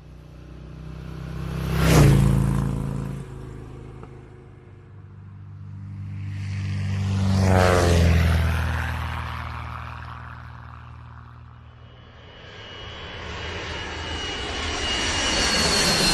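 Engine-driven vehicles passing by one after another. A quick one peaks about two seconds in. A second peaks around eight seconds, its pitch dropping sharply as it goes past. A third grows louder near the end with a high whine.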